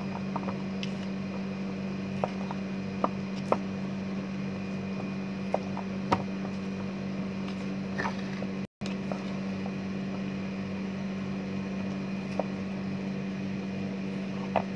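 A spoon stirring thick banana bread batter in a metal pot, clinking and scraping against the pot in scattered sharp clicks, over a steady mechanical hum.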